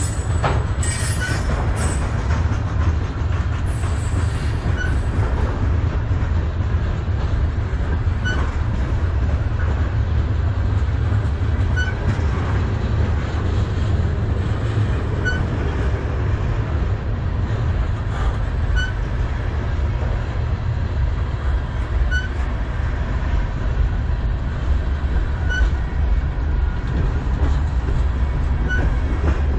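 Freight cars of a manifest train rolling past at track side: covered hoppers and tank cars, a steady heavy rumble of wheels on rail. Brief high wheel squeals in the first two seconds, and a short high ping that comes back about every three and a half seconds.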